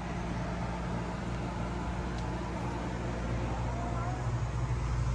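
Steady running noise of a motor vehicle, a continuous low engine hum with road or wind noise over it.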